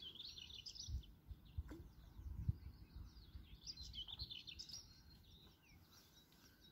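Small birds chirping and twittering faintly in two bursts, one near the start and one around the middle, with a few low thumps in the first couple of seconds.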